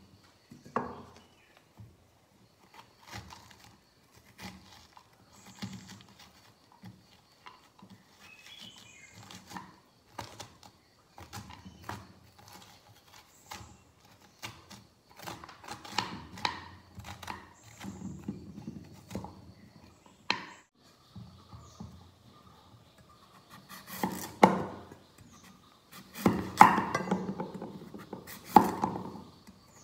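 A knife cutting through raw pumpkin on a wooden chopping board, with a spoon scraping out the seeds and pulp, in scattered clicks and scrapes. Near the end, a few louder knocks as a cleaver cuts through a pumpkin slice into the board.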